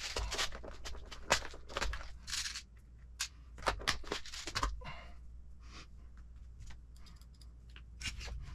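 Plastic crinkling and rustling with sharp clicks as a clear plastic compartment box of small hardware and its parts are handled on a workbench. The sound is busiest for about the first five seconds, then settles to sparse light taps.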